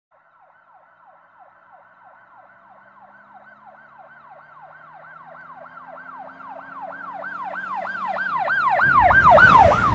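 Emergency-vehicle siren in a fast yelp, about three and a half falling sweeps a second, growing steadily louder. About nine seconds in, a rush of loud noise comes in under it.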